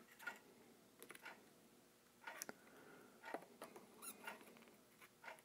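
Near silence with faint, scattered small clicks and ticks of needle-nose pliers and a soldering iron tip against a potentiometer and its wires while a solder joint is made.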